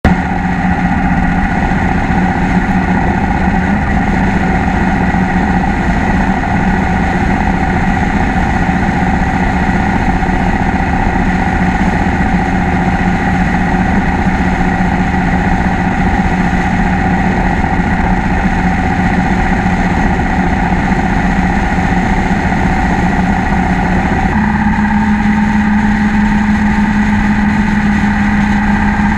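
Cruiser motorcycle engine running steadily at road speed, heard from a bike-mounted camera with wind and road noise. About 24 seconds in, the engine note steps up slightly in pitch and holds there.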